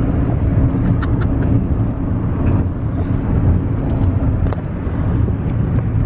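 Steady low rumble of a car heard from inside the cabin while driving: engine and road noise, with a few faint clicks and knocks.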